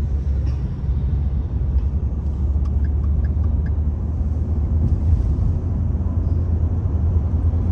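Steady low rumble of a car driving, road and engine noise heard from inside the cabin, with a few faint ticks.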